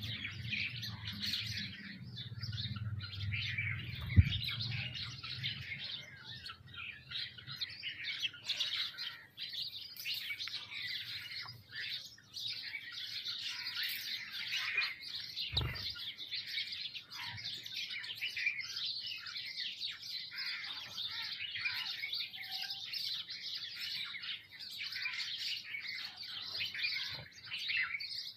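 A feeding flock of sparrows and mynas chirping and chattering continuously in many overlapping calls. A single sharp click about four seconds in and a dull thump past the middle; a low hum fades out about five seconds in.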